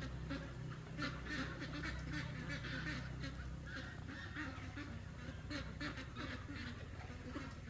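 Domestic fowl calling: many short calls overlapping in quick succession.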